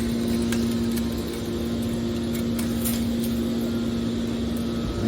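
Scrap metal baler's machinery running with a steady hum, with a few faint clicks over it.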